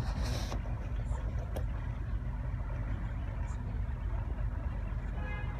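Canal boat's engine running steadily as a low rumble, with a short burst of hiss at the start.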